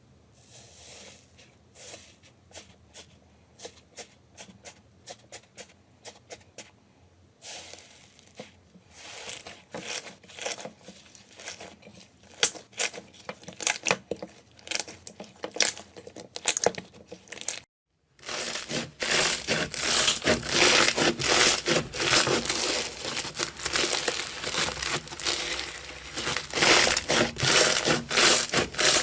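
Slime being squeezed and poked by hand: sticky clicks and pops, sparse at first. After a brief break about two-thirds of the way in, a louder, dense run of crackling follows.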